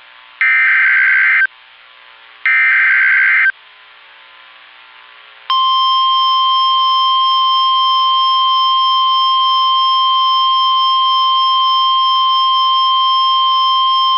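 Emergency Alert System header: the last two of three buzzy one-second data bursts, about a second apart. After a pause of about two seconds, the long steady single-pitch attention tone sounds for about nine seconds, signalling the tornado warning that follows.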